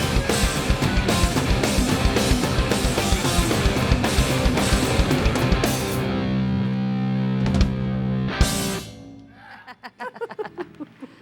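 Punk rock band playing live: distorted electric guitars, bass and a fast-driving drum kit at full tilt. About six seconds in the drums drop out under a held, ringing chord. A couple of final hits around eight seconds end the song, and the sound dies away.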